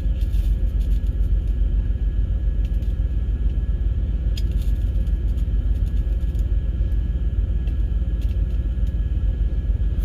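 Steady low rumble of an idling truck engine. A few faint clicks of small metal parts are handled over it.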